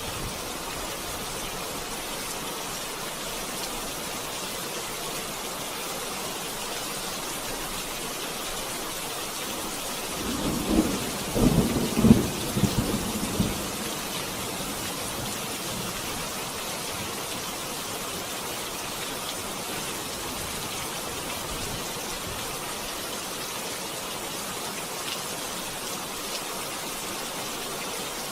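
Steady rain hissing, with a crackling rumble of thunder about ten seconds in that lasts some four seconds before fading back into the rain.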